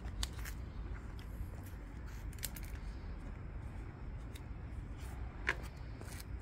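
Radish greens rustling and stems snapping as leaves are picked by hand, in a string of small clicks over a low steady rumble. A sharper click about five and a half seconds in is the loudest sound.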